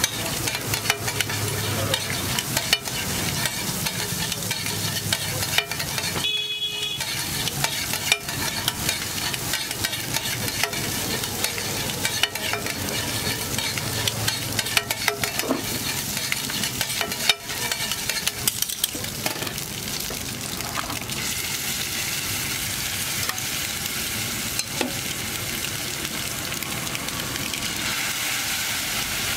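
Metal spatula rapidly scraping and tapping a scrambled egg mixture on a large flat griddle (tawa), over a steady sizzle of frying. After about twenty seconds the clatter of strikes thins out and mostly sizzling is left.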